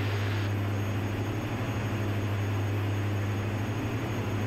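Diamond DA-42NG's two Austro turbodiesel engines droning steadily at 75% cruise power, heard from inside the cabin.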